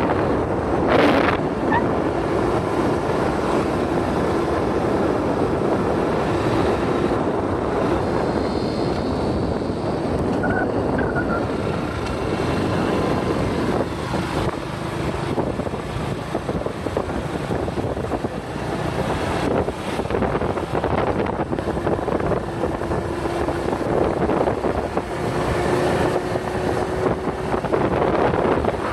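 Steady wind buffeting the microphone of a moving motorcycle, with the bike's running engine and road noise beneath.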